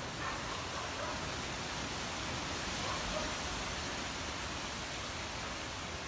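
Steady, even hiss of outdoor background noise, with a few faint indistinct sounds in the distance.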